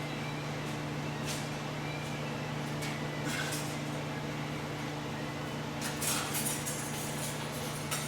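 Hand tools clinking and scraping a few times against exhaust manifold bolts, with a cluster of clinks about six seconds in, over a steady low hum.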